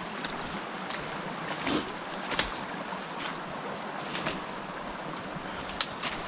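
Small mountain creek rushing steadily over rocks, with a handful of short, sharp clicks and knocks scattered through.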